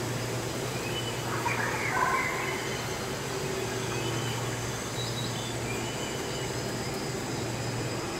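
Indoor greenhouse ambience: a steady low mechanical hum, like ventilation or air-handling equipment, with faint short chirps scattered over it, most of them between one and two seconds in.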